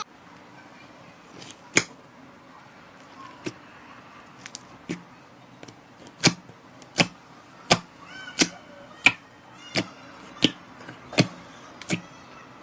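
Slime being pressed and worked, giving sharp air pops: a few scattered at first, then a steady run of loud pops about every two-thirds of a second through the second half.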